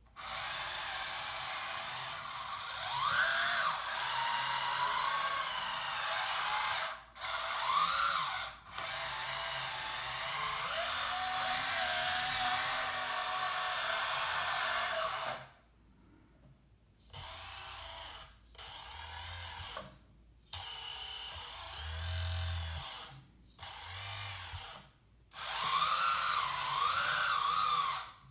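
Whirring and whining from the motors and hydraulic pump of a 1/14 RC metal hydraulic tracked skid steer loader, the pitch rising and falling as it works. It cuts out briefly several times and pauses almost silently for a moment about halfway through.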